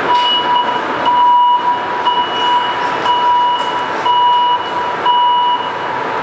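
Six electronic warning beeps, about one a second, each a steady tone of about half a second. They sound over the steady hum of a Montreal Metro train standing at the platform.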